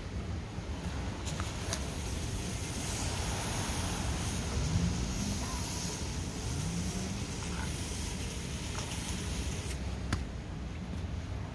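An aerosol can of oven cleaner spraying foam into a sooty diesel intake manifold. It gives a long, steady hiss that starts about a second in and stops near the end, with a click as it starts and another as it stops.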